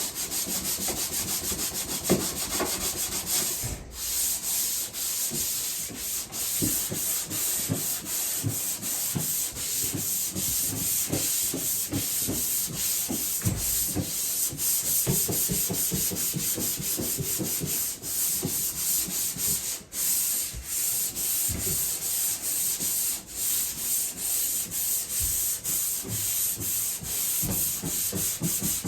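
Hand sanding of drywall joint compound on a patched wall: rhythmic back-and-forth scraping strokes, a few a second, with brief pauses about 4 and 20 seconds in.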